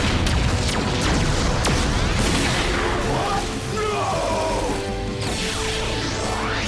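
Action-scene music overlaid with sound effects: crashes, mechanical clanks and whooshes, ending in a long rising whoosh.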